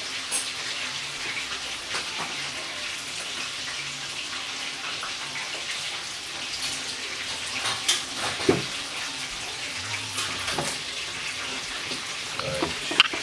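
Steady hiss of running water, with a few faint clicks and knocks.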